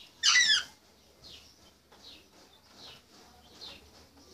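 African grey parrot giving one loud, sharp whistling call at the start, followed by a string of soft, short high chirps about twice a second.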